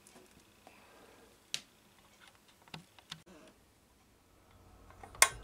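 A few light clicks and taps from handling things on the workbench while a heat shield and heat lamp are set up, ending in a sharper click near the end as a faint low hum comes in.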